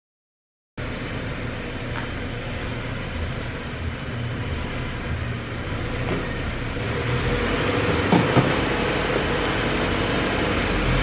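A car engine running steadily, growing slowly louder, with a couple of faint clicks late on.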